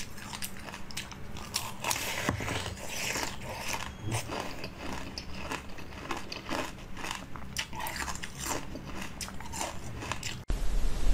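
Close-up crunchy bites and chewing of frozen pink jelly filled with pomegranate seeds: a quick, irregular string of sharp crunches and crackles. About half a second before the end the sound cuts abruptly to a louder low hum.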